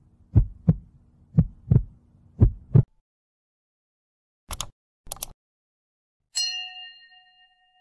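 Heartbeat sound effect: three double beats over a low hum that stop about three seconds in. Then two short clicks and a single notification bell ding that rings and fades.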